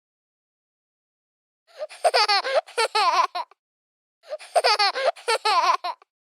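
Baby giggling in two separate bursts of high, wavering laughter, each about two seconds long, the first starting about two seconds in and the second about four seconds in.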